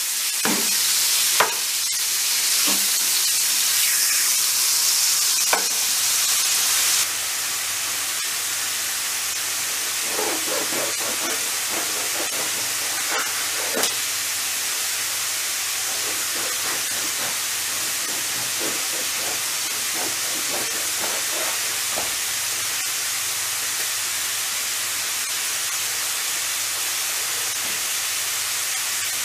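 Thin-sliced beef sizzling in oil in a frying pan, stirred with a wooden spatula that clicks against the pan. About seven seconds in, the sizzle gives way to a quieter steady hiss, with soft rasps and knocks of a bread knife sawing a crusty loaf on a wooden board.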